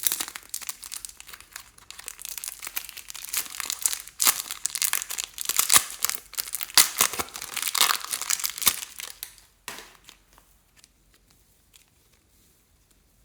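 Clear slime being squeezed and stretched by hand, giving a dense run of irregular crackles and pops that stops about ten seconds in. After that come only a few faint scattered clicks.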